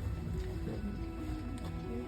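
Background music, a melody of held notes moving step by step, over a steady low rumble.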